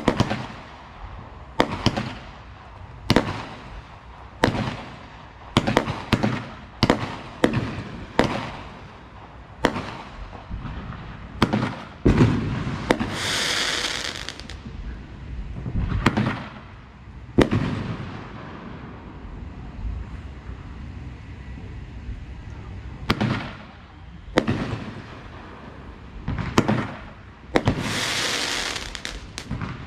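Consumer aerial firework cakes and shells firing and bursting: a string of sharp bangs about every one to two seconds, with two longer hissing stretches, one about 13 seconds in and one near the end, and a quieter lull in between.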